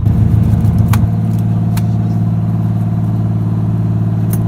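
An engine running steadily with an even, low hum that changes and settles about a second in, with a few light clicks over it.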